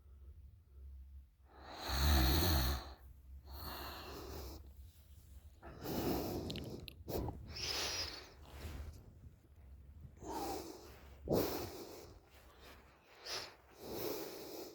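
A woman snoring in deep sleep through an open mouth: a string of snoring and wheezy breaths about every one to two seconds, the loudest snore about two seconds in.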